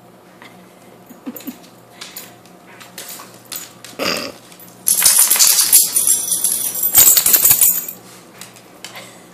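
Scattered light clicks and knocks, then a loud scraping, rustling noise lasting about three seconds as a dog brushes its body against the phone's microphone.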